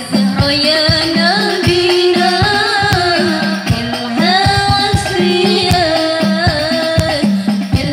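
Hadroh ensemble: a woman sings a devotional Islamic song with a wavering melody over a steady beat of rebana frame drums.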